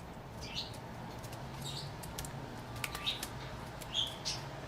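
Light clicks and short scratchy rubs as a replacement MacBook Air keyboard is pressed into place over the rivet posts of the aluminium top case, over a steady low hum.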